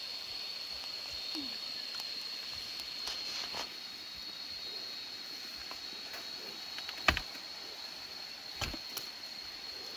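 Steady high-pitched drone of insects in a field, with two short knocks about seven seconds in and a second and a half later.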